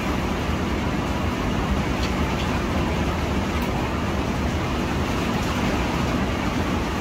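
Heavy rain: a steady, loud rush of noise with a low rumble beneath it.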